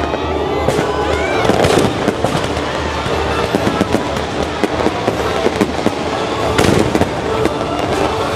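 Aerial fireworks shells bursting in a rapid, continuous string of bangs and crackles.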